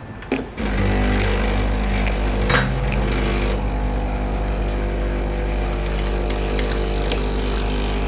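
Breville espresso machine's vibratory pump switching on with a click and running with a steady buzzing hum, pumping water through the group head.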